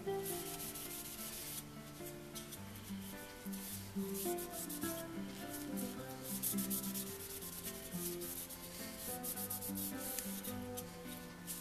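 Cloth rubbing briskly back and forth along the wooden beam of a small marking gauge, a repeated dry swishing, buffing in a wipe-on finish. Background music plays underneath.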